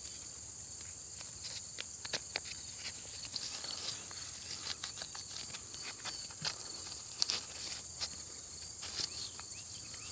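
Dry corn husks rustling and crackling in short irregular bursts as an ear of corn is peeled open by hand, over a steady high chirring of insects.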